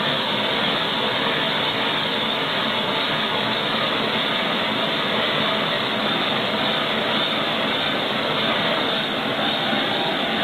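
Handheld torch lighter burning with a steady, even hiss of gas and flame, without a break.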